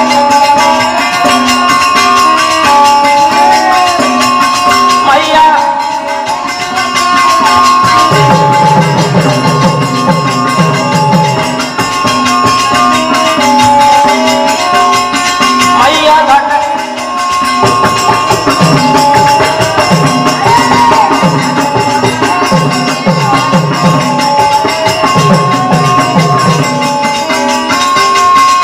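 Live birha folk music: a harmonium holding a melody in long steady notes over a steady beat on hand drums, with bending low drum strokes in two stretches.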